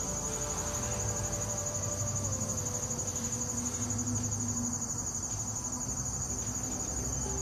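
Outdoor insect chorus: a steady, high-pitched trilling that runs on without a break.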